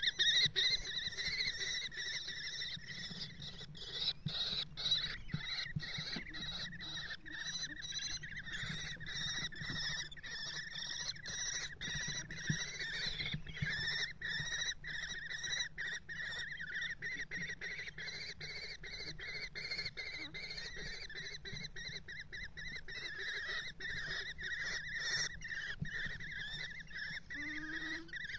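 Common kestrels calling continuously: a rapid, steady, high-pitched chittering that keeps going without a break.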